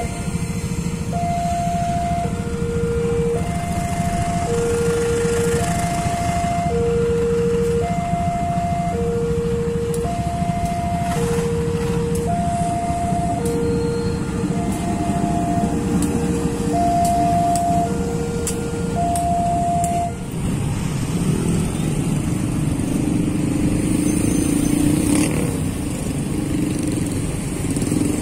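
Railway level crossing warning alarm sounding two alternating tones, a high one and a lower one, each about a second long. It runs over the steady rumble of a passing diesel train and idling road traffic, and stops about twenty seconds in as the traffic starts to move.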